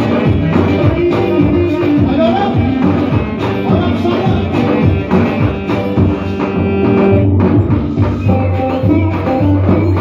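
Loud live dance music from an electronic keyboard played through a PA loudspeaker, with a steady drum beat.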